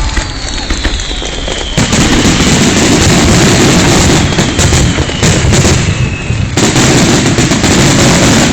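Fireworks finale barrage: shells bursting and crackling in rapid succession over a continuous rumble, with high whistles falling in pitch twice.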